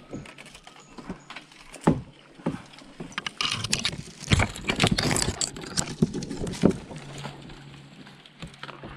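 Paddle strokes on a plastic sit-on-top fishing kayak: a run of irregular knocks and clunks of the paddle against the hull, mixed with water swishing in the middle.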